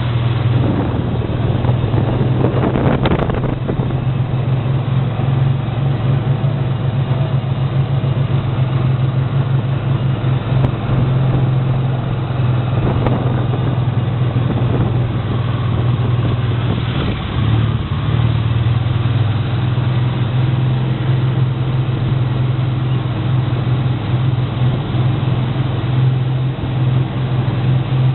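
A motor or engine running steadily with a low, even hum.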